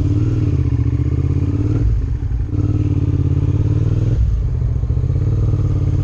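Motorcycle engine running as the bike rides off, its pitch rising, with the note dropping away briefly about two seconds in and again just after four seconds.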